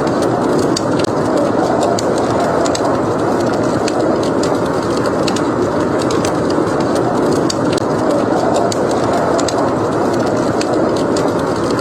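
Steady rushing blizzard wind with a wood fire in a fireplace crackling over it in frequent, irregular sharp pops.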